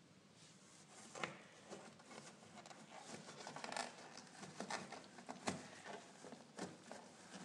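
Kittens scrabbling and clawing at a cardboard box, with faint irregular scratches and light taps starting about a second in.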